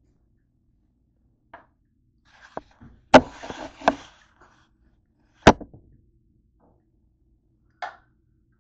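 Sharp knocks and clatter of a white plastic cutting board stacked with grilled bread slices being moved and set down: two knocks a little under a second apart about three seconds in, with a scraping rustle between them, then another sharp knock about two seconds later and a light tap near the end.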